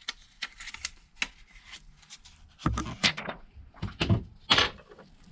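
Thin protective plastic film being peeled off a new phone replacement screen: small crackling ticks, then three louder crinkling, rustling handling sounds about three, four and four and a half seconds in.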